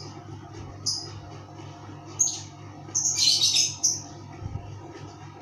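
A small bird chirping in short, high chirps: one about a second in, another about two seconds in, then a quick run of chirps around three to four seconds in, over a steady low hum.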